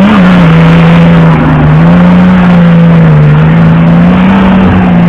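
Off-road SUV's engine revving hard and held high under heavy load as it climbs a muddy slope. The pitch stays nearly steady, dipping slightly now and then, and the sound is loud.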